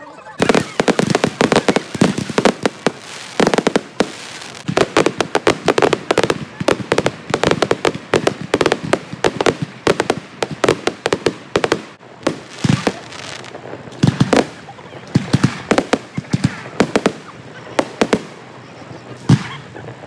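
Aerial fireworks display: a dense, rapid barrage of bangs and crackles that starts about half a second in, with a few louder single booms in the second half.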